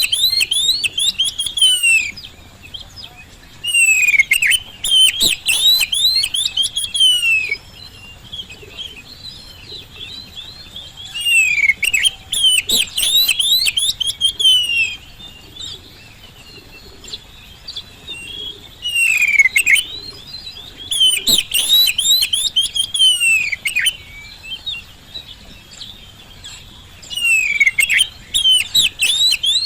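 Oriental magpie-robin (kacer) singing continuously: loud bouts of fast, sweeping whistles and chattering phrases, each lasting three to four seconds and coming about every seven to eight seconds, with softer twittering between them.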